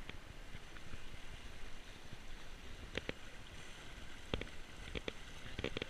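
Choppy lake water sloshing against a concrete pier wall, with wind rumbling on the microphone. A few short sharp clicks come about three seconds in and several more in the last second and a half.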